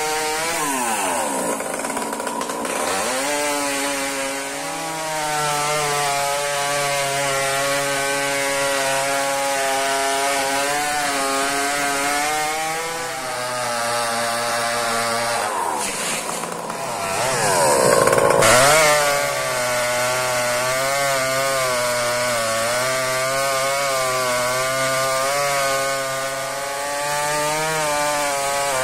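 Two-stroke chainsaw running at high revs and cutting wood, its pitch wavering as the chain bites. Twice the engine drops toward idle and revs back up: once near the start and again about two-thirds of the way through.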